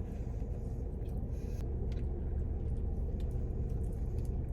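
Steady low rumble of a car's engine running, heard inside the cabin, with a faint steady hum and a few faint clicks over it.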